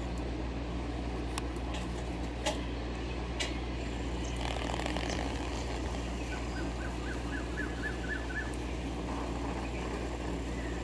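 Outdoor ambience dominated by a steady low hum. A few sharp clicks come in the first few seconds, and a quick run of about eight short bird chirps, about four a second, comes around the middle.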